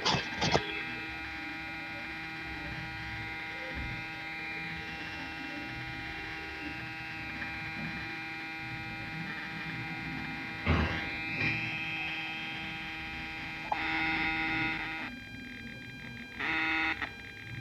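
Speaker on a small PAM8403 amplifier board giving a steady electrical buzz and hum of many fixed tones, with a faint hiss: the kind of extra noise a filter capacitor is added to cure. A thump comes about eleven seconds in, the buzz grows louder for about a second near fourteen seconds, and short bursts follow near the end.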